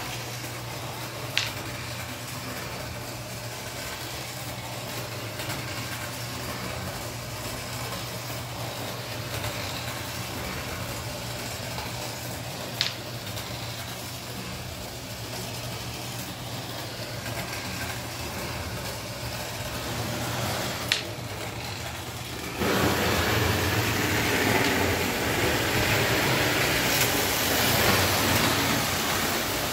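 A steady low hum with three sharp clicks, then, about three-quarters through, a sudden louder, even rumble: a postwar Lionel O gauge engine and its cars running on three-rail track close by.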